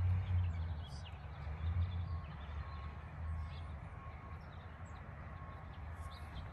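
Quiet outdoor ambience on a golf tee: a steady low rumble on the phone's microphone, with a few faint high chirps.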